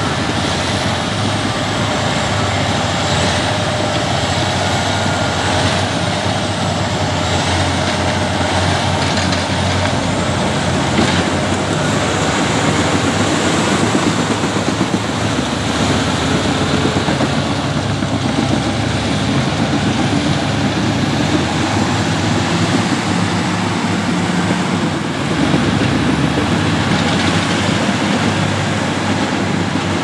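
Caterpillar D8R bulldozers' six-cylinder diesel engines running steadily under load while pushing material, with their steel tracks clattering.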